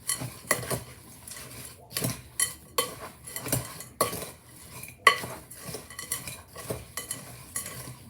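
Spoon stirring a mix of oats, strawberries and chocolate chips in a mixing bowl, with irregular knocks and scrapes against the bowl, about one or two a second.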